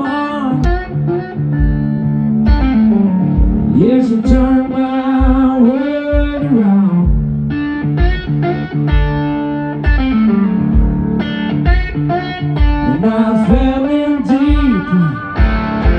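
Live blues-rock band music: an electric guitar playing a lead line with bending notes, over bass and a steady kick drum.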